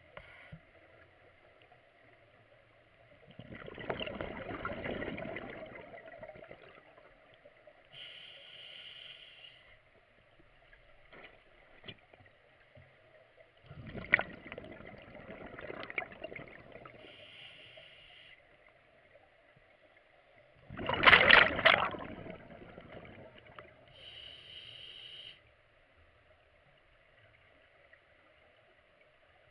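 A scuba diver breathing underwater through a full-face mask's regulator. There are three loud rushes of exhaled bubbles, each followed a couple of seconds later by a shorter hiss of air drawn through the demand valve.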